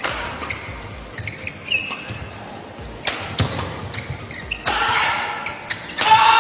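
Badminton rally: rackets sharply striking the shuttlecock at irregular intervals, with short squeaks of shoes on the court. Crowd noise swells near the end.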